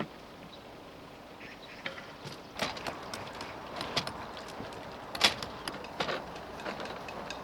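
A series of irregular knocks and clicks, as of things being handled, over a steady background; the sharpest knock comes about five seconds in.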